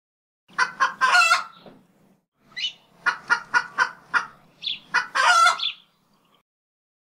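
A bird calling: two short calls and a longer one, then a run of about seven short, evenly spaced calls ending in another longer call.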